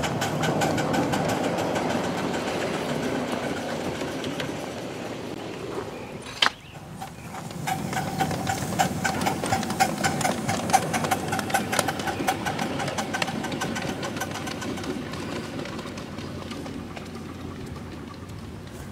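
Live-steam ride-on scale steam locomotive running, making rapid, even beats with a steady tone over them. About six and a half seconds in, a sharp click breaks in. The same running sound then comes back quieter and fades slowly.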